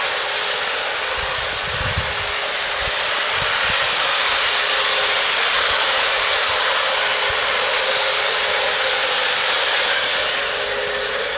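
LionChief RS-3 model diesel locomotive running on a garden railway: a steady whirring hiss of its motor and wheels on the track, with a steady hum. It swells slightly and eases near the end. Wind buffets the microphone underneath.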